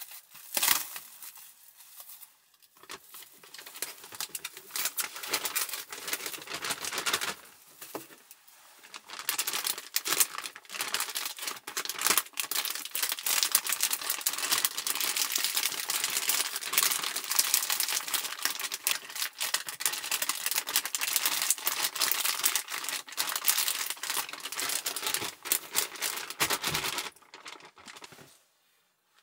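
Plastic zipper bag crinkling and rustling as it is handled, a few scattered rustles at first, then dense continuous crinkling from about nine seconds in that stops shortly before the end.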